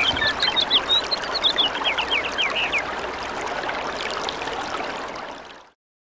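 Toilet flushing: rushing water with a quick run of gurgles over the first few seconds, then a steady rush that cuts off suddenly near the end.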